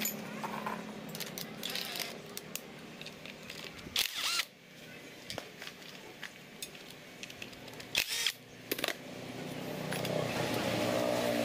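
Cordless drill-driver whirring in short spurts, once about 4 s in and twice around 8 s, on the screws holding a chainsaw's carburettor, among small clicks of tools and parts being handled.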